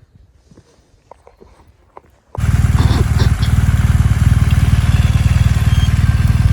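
Faint scattered clicks and footsteps, then, a little over two seconds in, a motorcycle engine running close to the microphone cuts in loud and steady, with an even low pulsing rumble.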